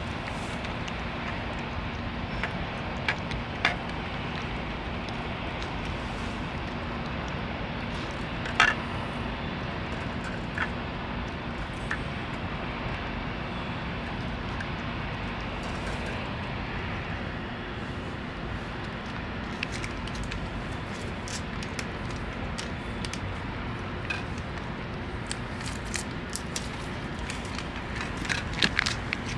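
A cat eating wet food from a metal bowl close up: scattered soft clicks and smacks of chewing, more of them near the end, over a steady outdoor background hum.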